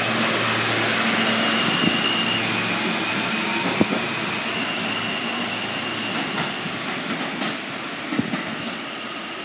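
Alstom-built R160A-2 New York City subway train pulling out of the station and running off into the tunnel: the rumble of wheels on rail fades steadily, under a thin high whine. There are a few sharp clacks, two of them at about two and four seconds in.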